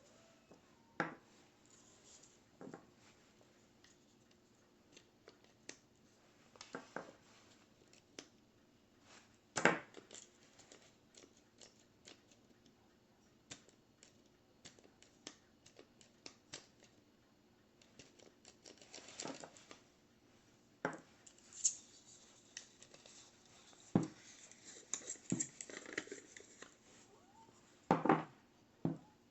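Scattered clicks, knocks and light scraping of the plastic parts of a Wacaco Minipresso GR hand espresso maker being handled and taken apart, with a louder knock about ten seconds in and a busier patch of scraping and clicking near the end.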